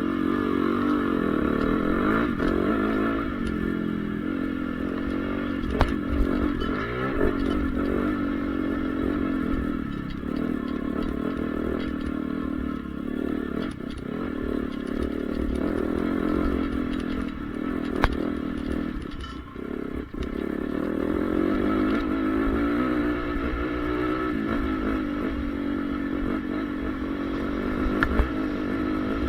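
Honda CRF450R motocross bike's single-cylinder four-stroke engine revving up and down again and again under riding. It briefly drops off about two-thirds of the way through, and a few sharp knocks come through the engine sound.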